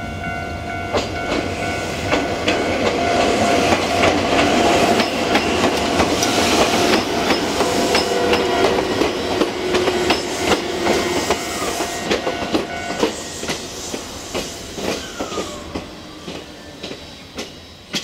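Ichibata Electric Railway electric train passing over a level crossing. Wheels clack over the rail joints, and the rumble swells to a peak midway, then fades as the train moves off. The crossing's warning bell rings at first, then is drowned out.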